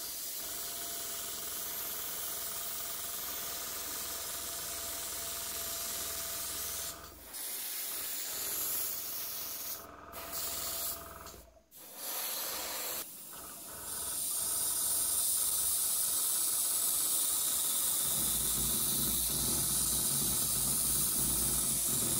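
Airbrush spraying primer: a steady hiss of compressed air and paint, cut off briefly a few times in the middle as the trigger is let go, and louder over the last several seconds.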